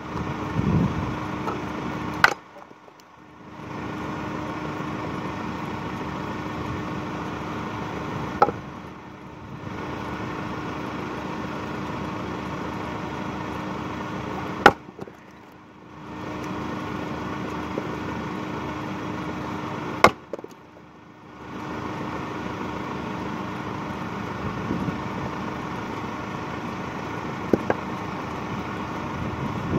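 Splitting axe striking firewood rounds on a chopping block: four sharp cracks spaced about six seconds apart, with a few lighter knocks near the end, over a steady background hum.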